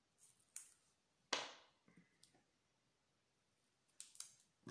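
Small craft scissors making a few short snips through a strip of 3D foam tape, the loudest about a second and a half in, with a pause before two more near the end.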